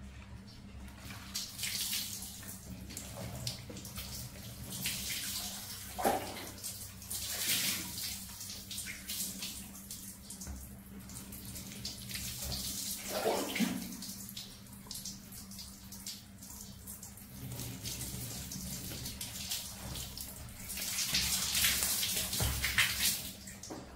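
Water poured from a plastic dipper over a baby monkey being bathed, splashing and trickling in several pours, the longest and loudest near the end.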